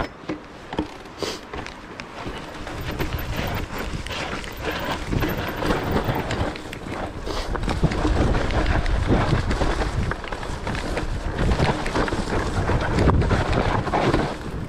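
Wind buffeting the camera microphone over the clatter and rattle of a mountain bike riding a rough, rooty trail, tyres and frame knocking over the bumps. It gets louder from about halfway through.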